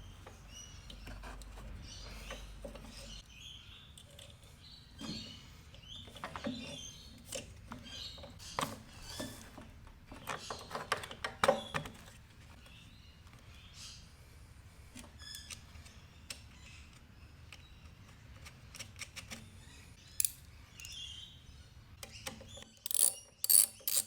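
Scattered clicks, taps and light knocks of hand work on a lawn mower's carburettor while the fuel line is refitted, with a quick cluster of louder clicks near the end.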